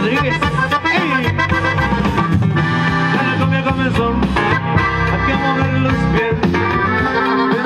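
A live band plays amplified music through a PA system: guitar, accordion, bass and drum kit playing a steady dance beat.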